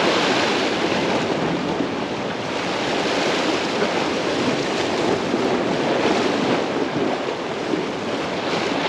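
Steady rush of waves washing against the shore, swelling and easing every few seconds.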